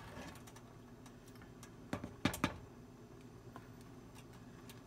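A wooden spatula knocking three times against the rim of a steel pot of rice porridge about two seconds in, the last two knocks close together, over faint ticking from the simmering pot.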